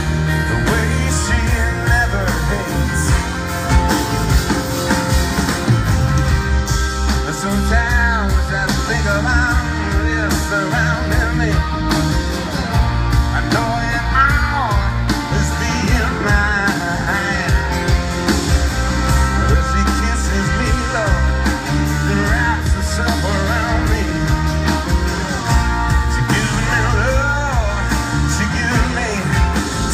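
Live rock band playing through a PA: drums, bass and guitars, with a lead melody line bending up and down on top.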